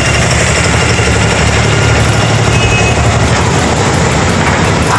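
The diesel engine of an abra, a wooden Dubai Creek water taxi, running with a steady low sound.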